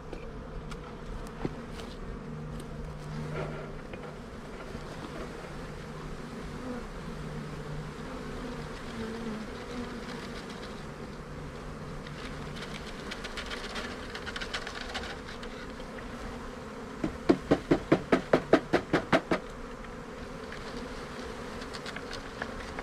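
Russian honey bees from a package buzzing in a steady hum. About seventeen seconds in, a quick run of about a dozen sharp knocks over two seconds, as the package box is shaken to tip the bees into the hive.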